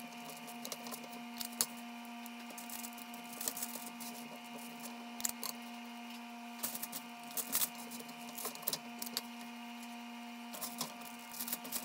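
A metal cookie-dough scoop clicking and scraping in a stainless steel mixing bowl as chilled, stiff dough is scooped out, in scattered irregular clicks over a steady hum.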